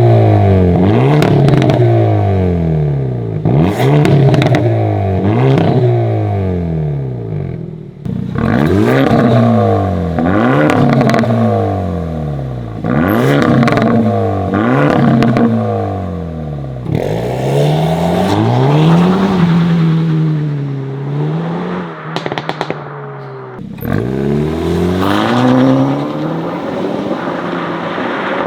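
Hyundai i30 N's turbocharged 2.0-litre four-cylinder revved again and again at standstill in N mode, each blip rising and falling in pitch with sharp cracks between blips, first through the stock exhaust and then, after a cut about 7 s in, through a Milltek aftermarket exhaust. After a cut about 17 s in, the car pulls away under acceleration on the stock exhaust, and after another cut near 24 s it pulls away again on the Milltek system.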